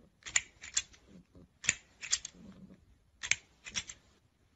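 Plastic crocodile grabber toy on a scissor-lattice arm clacking as it is shot out and snapped back, in quick clusters of sharp clicks about every second and a half.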